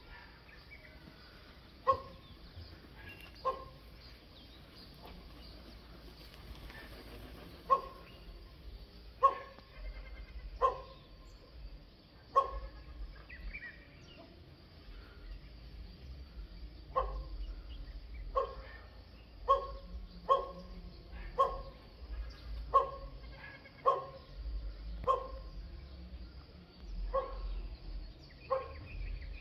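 An animal's short, loud calls, about sixteen, repeated every one to two seconds with a pause midway.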